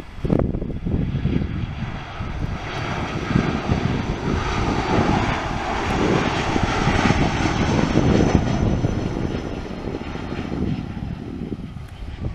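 Twin-engine Airbus A320-family jet airliner on short final passing close by. Its engines make a rushing whine over a low rumble that builds to a peak about two-thirds of the way through, then eases off as it crosses the runway threshold. Uneven low buffeting, as of wind on the microphone, runs under it.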